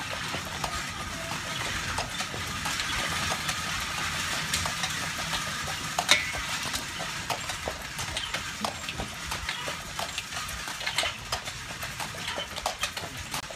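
Horse-drawn carriage on the move: a horse's hooves clopping at a walk on a sealed road, with the carriage wheels rolling and the harness and trace chains clinking in irregular clicks. There is one sharper clack about six seconds in.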